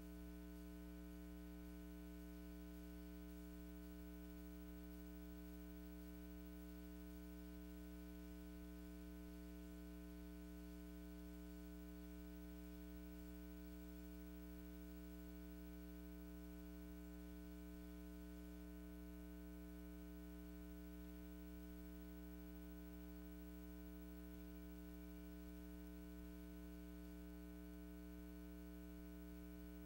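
Faint, steady electrical mains hum with a buzzy edge, and no other sound.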